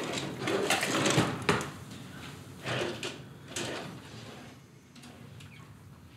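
Kitchen dishes and utensils handled at a counter: a busy run of clinks and knocks in the first couple of seconds, then a few single knocks, growing quieter toward the end.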